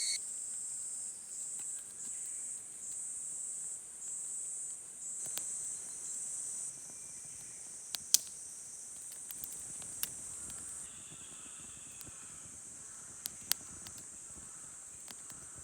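Night insects such as crickets singing a high-pitched trill, in pulses about a second long for the first seven seconds, then without a break. A few sharp pops from the campfire crackle over it.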